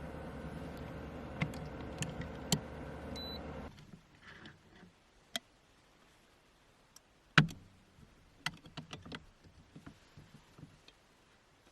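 A steady machine hum cuts off suddenly about four seconds in, leaving quiet broken by small clicks and light knocks, with one louder knock about seven seconds in.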